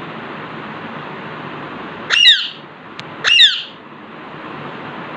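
Alexandrine parakeet giving two loud, harsh squawks about a second apart, each a short downward-sweeping call, over a steady background hiss.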